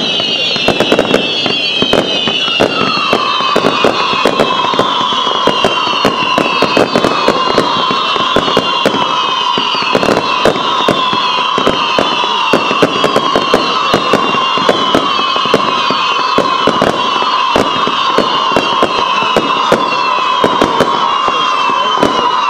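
Fireworks salvo of whistling effects: many overlapping high whistles, each falling in pitch, and from about three seconds in a steady lower whistle held on. Dense, rapid bangs and crackles run under them.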